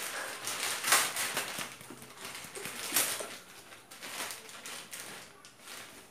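Plastic courier mailer bag being torn open and crinkled by hand, with louder rips about a second in and about three seconds in.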